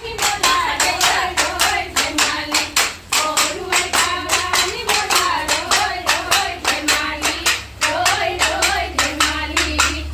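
Group of women singing a Bihu song together while clapping their hands in a quick, steady rhythm.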